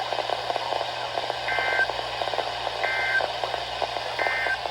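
Three short two-tone digital data bursts from a NOAA Weather Radio broadcast, about 1.4 s apart, heard over crackly radio static. They are the SAME end-of-message code sent after a required weekly test.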